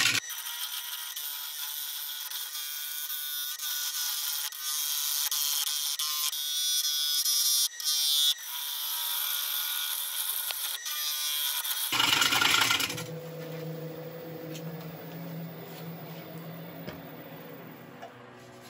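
Turning tool cutting the rim of a large, very hard Scottish elm platter spinning on a wood lathe: a steady, harsh scraping hiss as shavings come off. Just after twelve seconds the cut ends with a brief louder burst, leaving the lathe running with a low hum.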